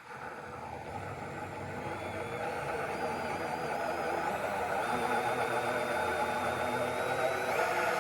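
Power drill running a hole saw, a steady motor hum with a high whine on top, growing louder over the first few seconds.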